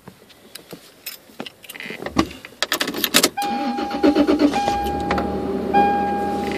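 A phone being set down in a truck's console, with a few light clicks and knocks. About two to three seconds in, the Toyota Tacoma's engine is cranked and catches, then settles into a steady idle. From then on, an electronic warning chime in the cab sounds as a held tone that breaks off and restarts roughly every second.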